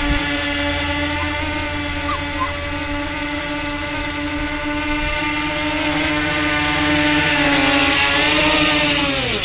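The two electric motors and propellers of a bicopter VTOL RC airplane whining steadily in hover. Near the end the pitch falls sharply as the motors are throttled down.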